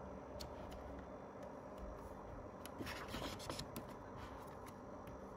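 Faint rustle and rub of paper photobook pages being turned and smoothed by hand. The loudest rustle comes about three seconds in, with a few light taps around it.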